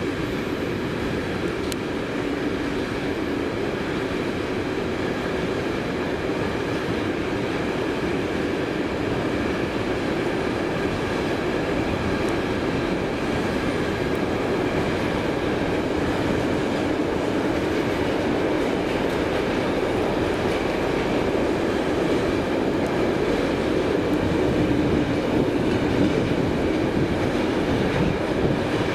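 Long container freight train rolling through the station, its wagons and wheels on the rails making a steady, continuous rumble that grows a little louder near the end.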